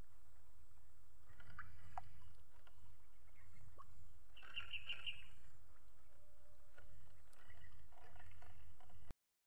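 Outdoor ambience: a steady low rumble of wind on the microphone, with a few faint bird calls over it, including a quick chattering run of about five notes midway. The sound cuts out briefly just before the end.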